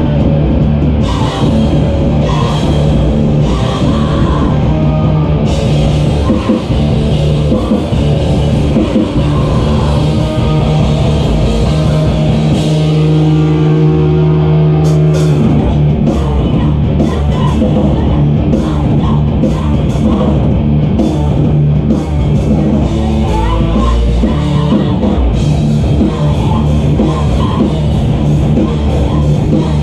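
Loud live heavy rock band playing, with distorted guitars and a drum kit. About halfway through, the drums stop for a few seconds while one chord rings out, then the full band crashes back in.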